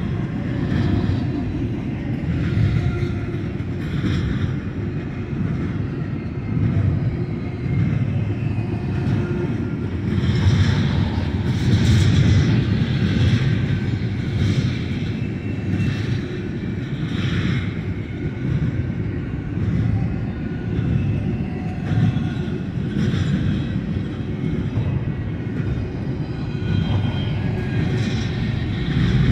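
Double-stack container train's well cars rolling past on the mainline: a steady low rumble with short sharp clanks every second or two.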